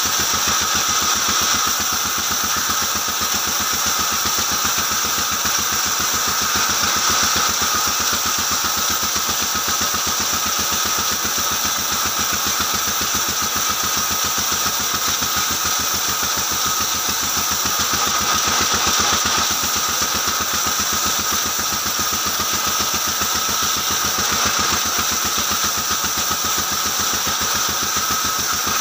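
Vertical band saw mill running steadily as it rips a long wooden plank lengthwise: an even, rapidly pulsing machine drone with a steady high whine over it.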